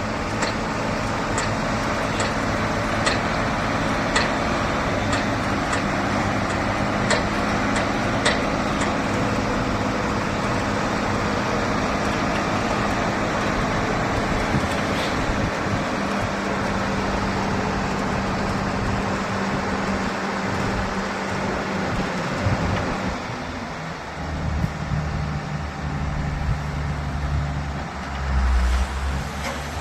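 Diesel engine of a working JCB backhoe loader running steadily, with a few sharp clicks in the first several seconds. About three-quarters of the way through, the engine note drops lower.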